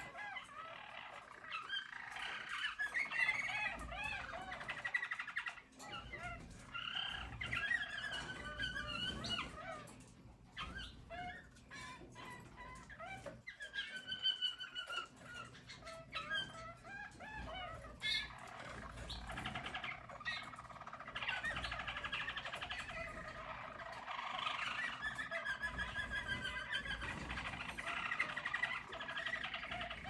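Harz German Roller canary song: continuous warbling, rolling phrases, with a brief quieter lull about ten to thirteen seconds in.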